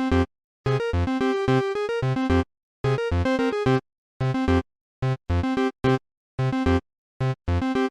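Synthesized ringtone melody of electronic keyboard-like notes, played in phrases with clean gaps of dead silence between them. After about four seconds the phrases give way to short, clipped groups of a few notes.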